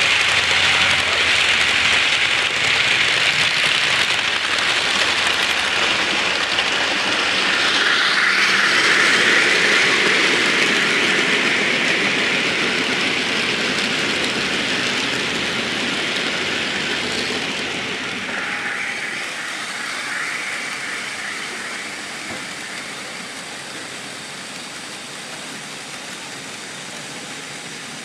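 Model trains running on the layout's track: a steady whir and rolling rattle of wheels on rails, fading gradually as the trains move away.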